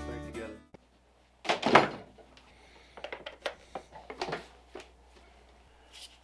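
Hard plastic knocks and clicks from handling a cyclone dust separator on a bucket lid and fitting a vacuum hose to it. There is a loud clatter about one and a half seconds in, then a run of lighter clicks and knocks.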